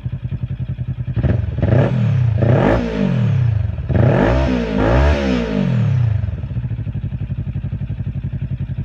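Kawasaki Ninja 400 parallel-twin engine idling, then revved in a series of quick throttle blips from about a second in to about six seconds in, each rising and dropping back, before it settles back to a steady idle.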